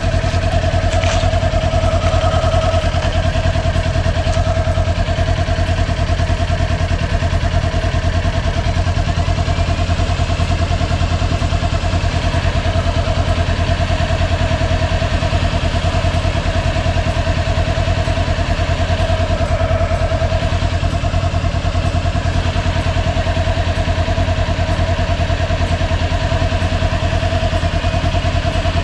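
Kawasaki motorcycle engine running at a steady, even pace with a constant whine over a low rumble, as the bike works through a muddy puddle on a dirt track.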